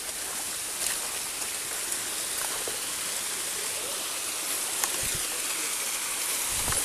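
Steady rushing of a small forest stream and waterfall over rock, the flow weak, growing slightly louder near the end, with a few faint clicks.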